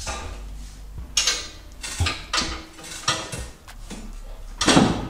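Hard plastic clattering and knocking from hands and tools working loose a truck's plastic fender liner and windshield washer fluid reservoir: about five separate knocks, the loudest near the end.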